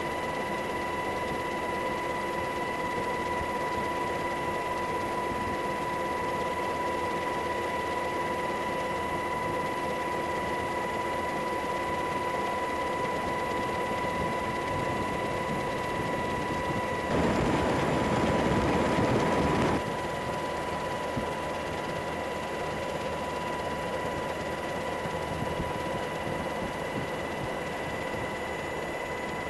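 Steady aircraft engine drone with a constant high whine, the cabin noise of an aircraft in flight. About two-thirds of the way through, a louder rushing noise lasts about three seconds before the drone returns.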